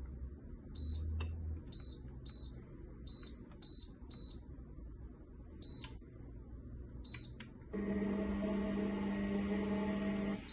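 Tefal heating blender's control panel giving a short high beep at each button press, about eight beeps in the first seven seconds. Then the machine's base gives a steady low hum for nearly three seconds, which cuts off near the end.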